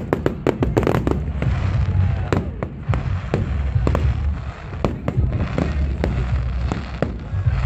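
Aerial fireworks bursting in a rapid run of sharp bangs and crackles, thickest in the first second, over a steady low rumble of booms.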